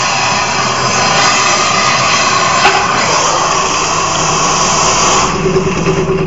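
Oxygen-propane torch flame hissing steadily as it melts non-precious dental alloy in the crucible of a centrifugal broken-arm casting machine. About five seconds in the flame hiss drops away and a steady hum comes in as the released casting arm spins, throwing the molten metal into the ring.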